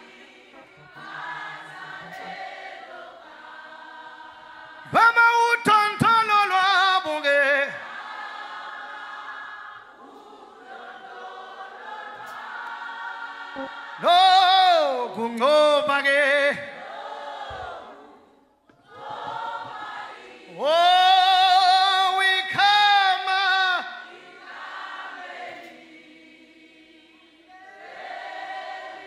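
A church congregation singing a slow worship song together. A single strong voice rises over the group three times in loud, held phrases with a wavering vibrato.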